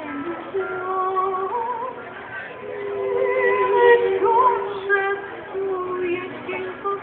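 A women's folk ensemble singing together in long held notes, accompanied by their own stringed instruments.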